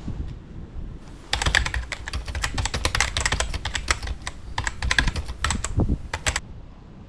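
A rapid, irregular run of sharp clicks and clacks, starting about a second in and stopping suddenly some five seconds later.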